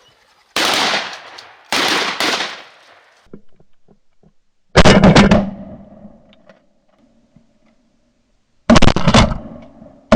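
Shotgun shots at incoming wood ducks: four blasts, each ringing out briefly. Two come a little over a second apart near the start, then two louder ones follow, about four seconds apart.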